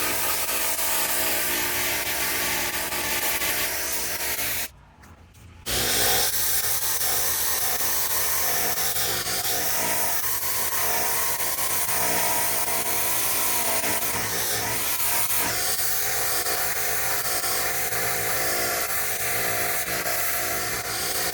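Pressure washer running steadily, its engine drone under the noise of the water jet spraying a surface. The sound drops out for about a second near five seconds in, then comes back the same.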